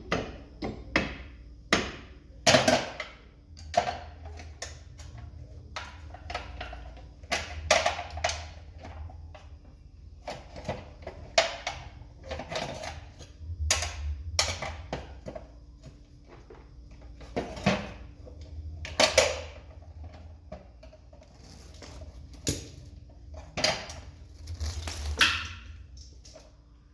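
Irregular metallic clinks, clicks and knocks of hand tools and metal parts being handled and set down during brake work.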